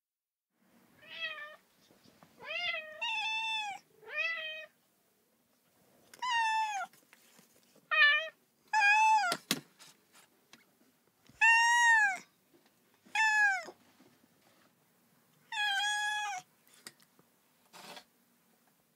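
Cat meowing repeatedly: about ten separate, fairly high-pitched meows with short pauses between them, each rising and then falling in pitch. There is one sharp click about halfway through.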